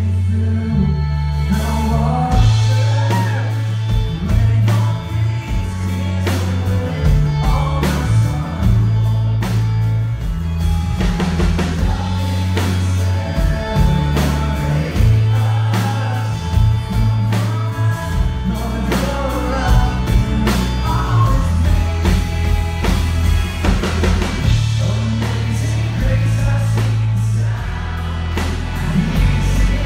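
Live pop-rock band playing through a PA: a lead vocal sung over electric and acoustic guitars, drums and a heavy, booming bass line.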